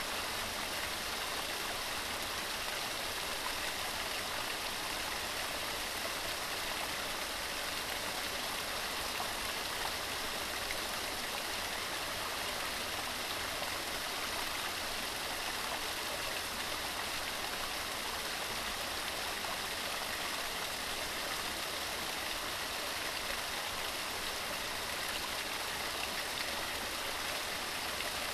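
Waterfall pouring steadily: an even, unbroken splashing hiss of falling water, with little low rumble.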